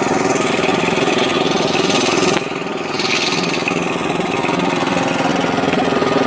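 Small single-cylinder petrol engine running steadily, driving a diving air compressor, with a brief dip in loudness about two and a half seconds in.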